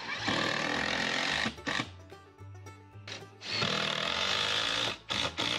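Power saw cutting through the cabin's wooden wall boards at the square opening for the chimney, in several runs: a long cut at the start, a short one, then another long cut, with short bursts near the end. Background music underneath.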